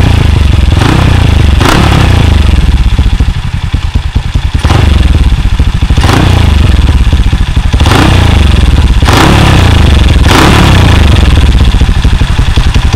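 A small single-cylinder four-valve motorcycle engine running loud through a short-canister 'móc ù' Monkey exhaust modified for a deep rumble. The rider blips the throttle again and again, every second or two, each rev rising and falling back over a heavy low rumble. The sound echoes in an underground garage.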